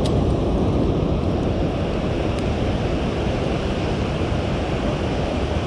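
Steady roar of water pouring through the open floodgates of a dam and churning in the tailwater below.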